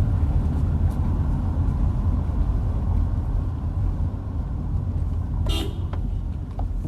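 Car engine and tyre rumble heard from inside the cabin while driving, with one short horn toot about five and a half seconds in.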